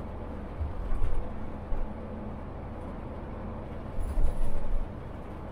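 Mercedes-Benz Travego coach driving on the road, heard from the driver's seat: a steady low rumble of engine and road noise, with a few louder low bumps about a second in and again near the end.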